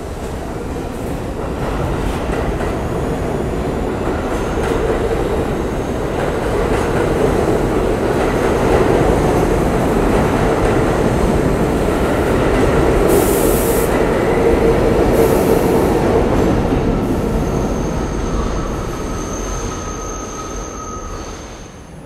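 An R42 New York City subway train running past along the platform, getting louder toward the middle and fading as the cars go by, with thin squealing tones from the wheels in the later part.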